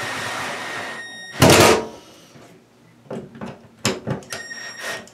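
Cordless drill driving screws into a plastic ceiling electrical box. The motor whines in two short runs, one stopping about a second in and another near the end. A loud harsh burst comes about a second and a half in, with scattered knocks and clunks between the runs.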